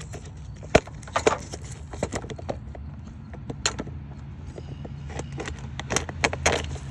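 Irregular sharp clicks and knocks of hard plastic and metal parts being handled on a 212cc Predator small engine's carburetor and air-filter housing, the loudest about a second in and again near the end, over a steady low hum.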